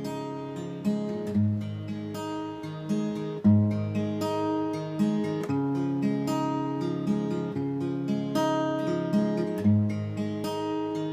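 Instrumental passage of a Cantonese pop-song cover: guitar chords strummed in a steady rhythm, with no singing.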